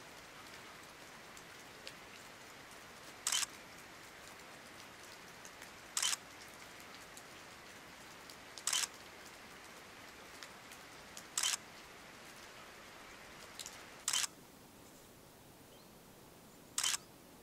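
Camera shutter clicks, six in all, evenly spaced about every two and a half to three seconds, each a short sharp double click. Under them a faint steady hiss of rain, which drops lower about fourteen seconds in.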